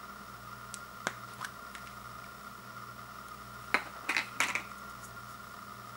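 Clear plastic cap of an Old Spice deodorant stick being worked off and handled: a few light plastic clicks, then a sharp snap nearly four seconds in followed by a short burst of crackly plastic clicking.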